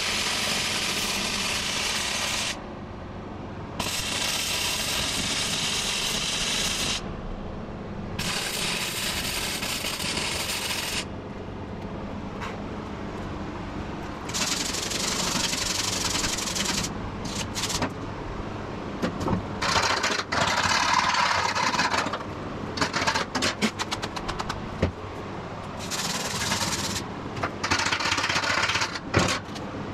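Titanium 125 flux-core wire welder arc crackling steadily in three runs of a few seconds each, with short pauses between, while cracks in a rotary cutter's steel deck are welded. In the second half, irregular scraping and clicking, with the loudest spikes about two-thirds of the way in, as the fresh welds are scrubbed with a wire brush.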